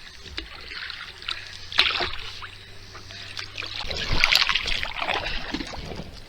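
Kayak paddle strokes through lake water, with splashing and dripping off the blade. There is one surge of water noise about two seconds in and a longer, louder one about four seconds in.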